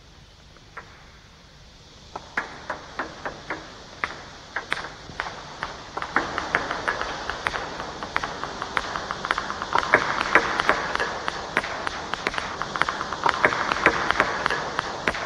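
Table tennis balls clicking off bats and the table as players practise serves: a few separate sharp clicks at first, then from about six seconds a fast, overlapping run of clicks from several balls at once.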